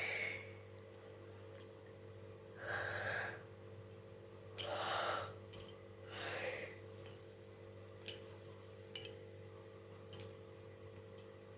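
A woman yawning: four long, breathy in-and-out yawn breaths a second or two apart, then a few faint clicks, over a steady low hum.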